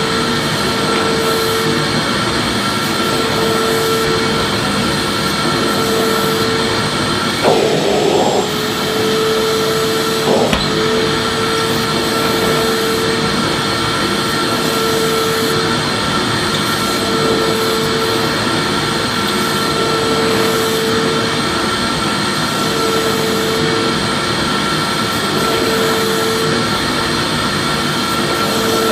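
Vacuum cleaner running steadily: a dense rushing noise with a constant high whine, and a lower hum that comes and goes every couple of seconds. A couple of brief bumps come about eight and ten seconds in.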